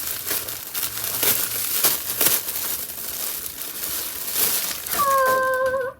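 Plastic packaging crinkling and rustling as a towel is unwrapped. Near the end a person's voice holds a single steady note for about a second.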